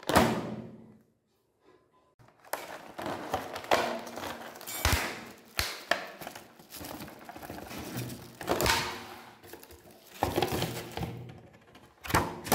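Clear plastic packaging being handled: a stiff blister tray and a plastic bag crinkling and crackling, with several sharp cracks and knocks. A sharp crackle comes right at the start, then a pause of about two seconds before irregular crinkling resumes.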